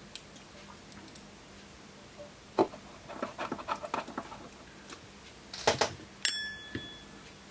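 Screws being driven back into the sheet-metal bottom cover of a digital video recorder: a screwdriver and screws clicking and tapping against the metal case, with a loose run of small clicks and a few sharper knocks, the loudest about six seconds in.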